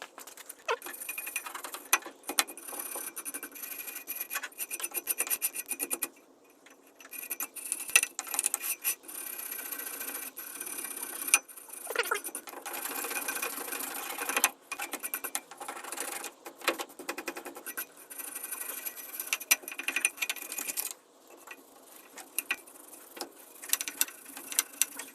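Wire brush scrubbing grime off metal rear brake parts in quick back-and-forth strokes, with short pauses about six, fourteen and twenty-one seconds in.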